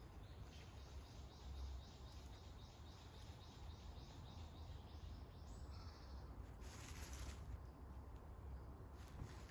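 Faint woodland ambience: a rapid, even series of high chirps, about four a second, that stops about five seconds in, over a low steady rumble.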